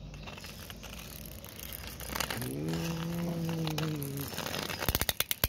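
A drawn-out hum, then a rapid run of sharp clicking near the end, like small plastic toy parts clattering.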